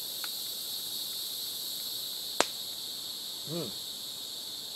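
Steady, high-pitched chorus of insects shrilling. About two and a half seconds in there is one sharp click, and a moment later a brief hum from a man's voice.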